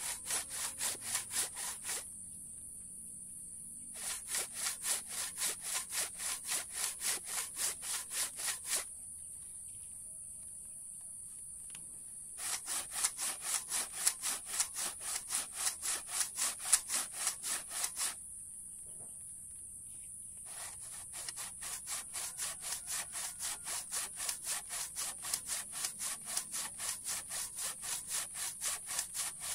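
Hand saw cutting through very hard mangosteen wood with rasping back-and-forth strokes, about three a second. The sawing comes in four runs with short pauses between them.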